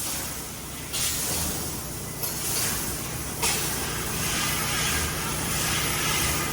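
Fiber laser tube-cutting machine at work: the hiss of assist gas at the cutting head, starting sharply three times about a second apart and then running on steadily, over a steady machine hum.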